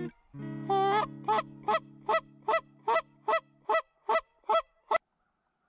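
Canada goose honking: a rapid run of about ten honks, about two and a half a second, over sustained music chords that fade out partway through. A click about five seconds in, then the sound cuts off.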